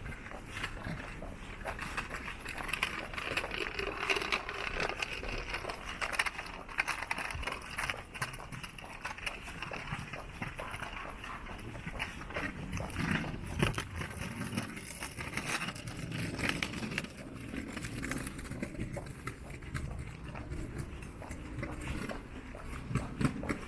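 Footsteps of a person walking at a steady pace, a continuous run of light steps and scuffs.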